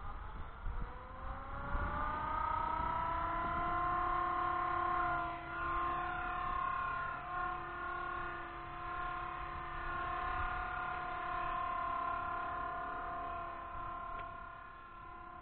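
Blade 180 CFX electric RC helicopter spooling up: the motor and rotor whine rises in pitch over the first few seconds, then holds a steady pitch with slight wavering.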